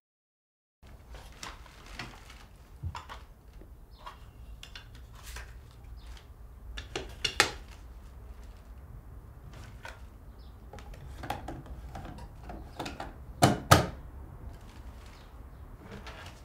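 Small objects being handled on a table: scattered clicks, clinks and knocks over a low steady room rumble, starting after about a second of silence, with two loud sharp knocks in quick succession near the end.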